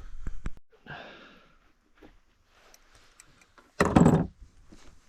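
A few light clicks, then a loud, short exhale by a person about four seconds in.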